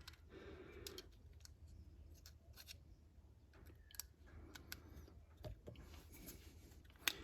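Faint small clicks and taps of a plastic model-kit part being handled and pressed into place, with a sharper click near the end, over near silence.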